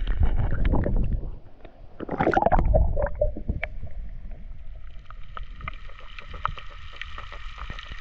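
Sea water sloshing and gurgling against a camera held at the water's surface, with a low rumble and small splashes, loudest in the first second and again around two to three seconds in.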